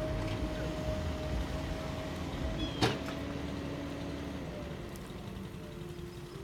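A machine engine running steadily with a low rumble and a faint hum, and a single sharp knock about three seconds in.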